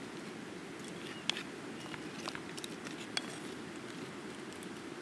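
Steady rushing of a river, with a handful of light, sharp clicks or ticks in the first few seconds.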